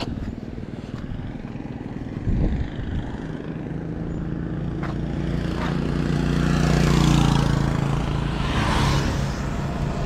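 Yamaha R15's single-cylinder engine idling steadily while the bike stands parked. A short knock comes about two seconds in, and another vehicle passes, loudest around seven seconds in.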